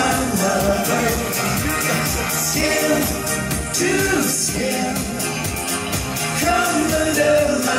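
Live synth-pop dance music from a band on stage, with a keytar and bass guitar under a steady beat and a man singing lead.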